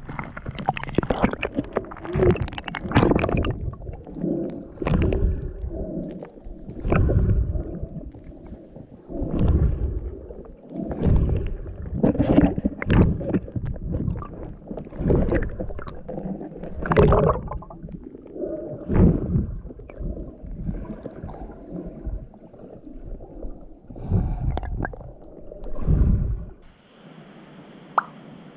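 Muffled sloshing and gurgling of river water around a camera held at and below the surface by a swimming snorkeller, coming in irregular swells about every second or two. About 27 seconds in it cuts to the steadier, quieter rush of a stream over rocks, with one sharp click.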